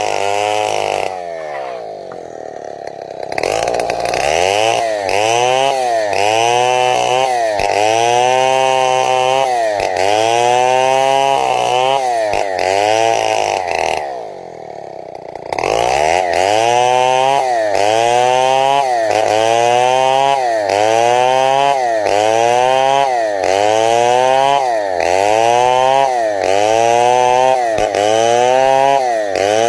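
Chainsaw running at high revs while ripping a log lengthwise into boards. The engine pitch dips and recovers about once a second as the bar is worked through the cut. Twice it falls back toward idle for a second or two, about a second in and again near the middle, then revs up again.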